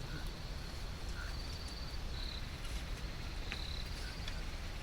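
Crickets trilling in high, steady stretches that come and go, over a low steady rumble.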